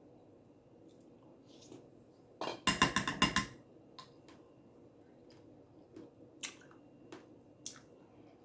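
Metal spoon clinking and scraping in a bowl of fruit and granola: a quick run of clinks lasting about a second, then a few single soft clicks.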